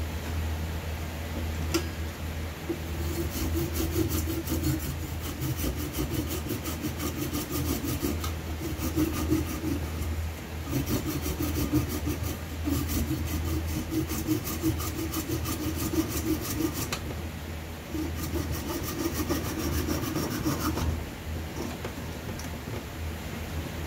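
Handsaw cutting through cherry wood to free a turned goblet from the lathe, in repeated back-and-forth strokes. The sawing pauses briefly about 17 seconds in and stops about 21 seconds in, over a steady low hum.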